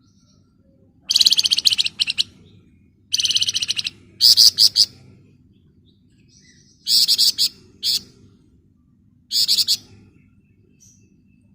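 A songbird known to Indonesian bird-keepers as flamboyan sings five bursts of rapid, shrill, buzzing trills ('ngebren'), each about half a second to a second long and a second or two apart. A faint low hum runs underneath.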